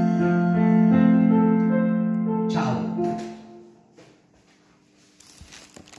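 Electronic keyboard playing the closing phrase of a song in a piano voice, melody notes over a held low chord. The final chord dies away about three seconds in.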